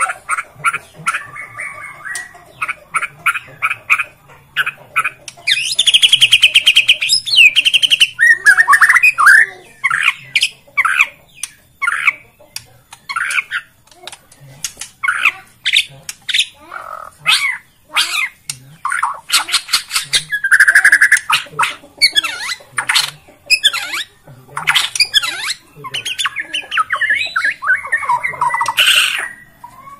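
Borneo white-rumped shama (murai batu) singing loudly: fast, varied phrases of sharp chattering notes and quick whistled sweeps, with long unbroken rattling runs about six seconds in and again about twenty seconds in.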